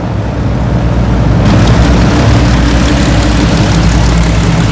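The Rolls-Royce Griffon piston engines of an Avro Shackleton running with their propellers turning, a steady low drone. It grows louder and fuller about a second and a half in.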